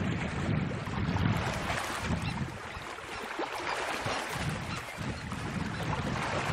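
Wind buffeting the microphone in uneven gusts over the steady wash of choppy open water; the gusts ease off around the middle and pick up again near the end.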